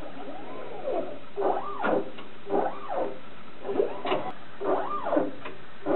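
Stepper motors of a Thermo Scientific RapidStak microplate mover whining in repeated rising-then-falling glides, about one a second, as its gripper arm moves a microplate onto a Multiskan GO reader's plate carrier. A sharp click about halfway through.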